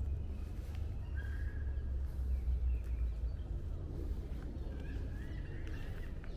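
Small birds calling, a scatter of short thin chirps and whistles, over a steady low rumble.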